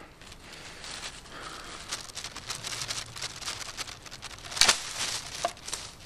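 Black plastic garbage bag crinkling and rustling, then about four and a half seconds in a single sharp snap as the rubber-band net launcher fires, its doubled Theraband bands releasing together and pulling the bird net out of the bag, with more plastic rustling after it.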